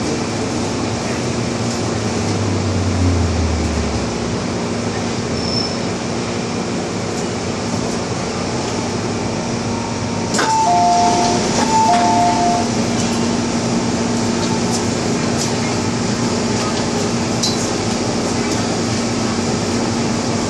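MTR Tsuen Wan line M-Train running steadily, heard from on board, with a low tone that falls in pitch about three seconds in. Two short pairs of two-tone beeps sound at about ten and twelve seconds.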